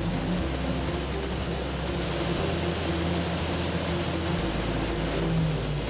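Atlas Copco XAS 1800 portable diesel air compressor running steadily under load at about 1,670 engine rpm as it builds air pressure, a continuous low engine hum.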